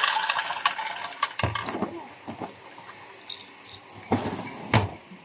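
Rattling and clicking of small hard objects being handled for about a second and a half. Scattered clicks follow, then two sharp knocks near the end.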